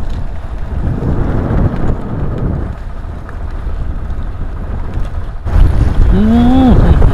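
Wind buffeting the microphone: a steady low rumbling noise beside choppy sea water, growing louder after a cut about five and a half seconds in. A brief voice call with a rising-and-falling pitch near the end.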